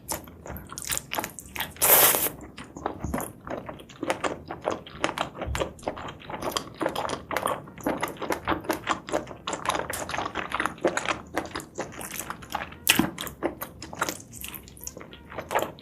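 Close-miked chewing and biting of spicy seafood and mushrooms: a dense run of irregular wet clicks and smacks, with one louder bite about two seconds in.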